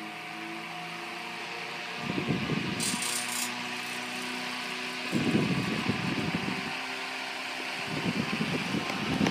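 Zero 9-inch electric desk fan running at its single speed while oscillating: a steady motor hum and whir of air through the blades. About every three seconds a low rumbling surge of its air stream buffets the microphone.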